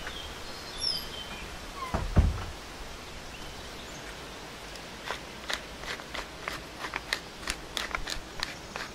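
Flaky salt sprinkled over a seared steak on a wooden cutting board, landing as an irregular patter of small sharp ticks from about five seconds in. A single low thump comes about two seconds in, and a few faint bird chirps sound near the start, over steady outdoor background noise.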